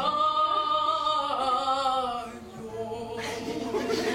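A woman's voice holds the long final note of a Russian romance with vibrato over instrumental accompaniment, breaking off about two seconds in; the accompaniment closes the song, and audience applause starts about three seconds in.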